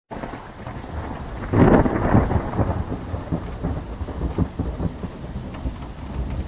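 Thunderstorm sound effect: steady rain hiss with a low rumble, starting abruptly, and a loud thunder crack and rumble about a second and a half in.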